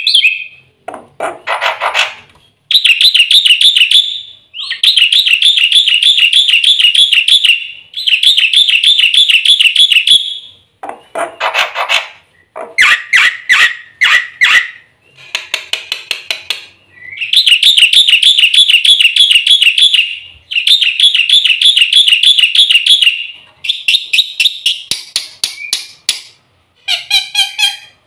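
Black-winged myna (jalak putih) in full song: long, rapidly warbling trills of two to three seconds each, alternating with harsh rasping calls and bursts of quick chattering notes.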